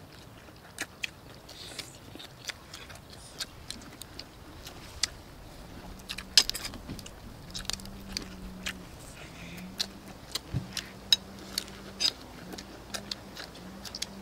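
People eating roast chicken and rice with their hands: irregular lip smacks and chewing clicks. A faint low hum comes in about six seconds in and drops out now and then.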